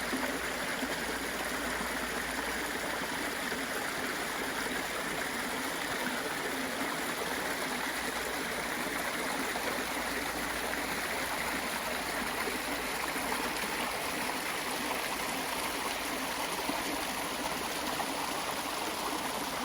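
Mountain valley stream flowing, a steady rush of water.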